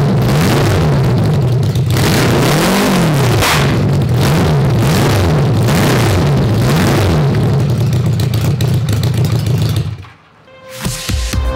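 A 1982 Honda Goldwing GL1100 flat-four engine runs on a stand outside the bike and is revved up and down over and over by hand at the throttle. It cuts off abruptly about ten seconds in, and electronic music starts near the end.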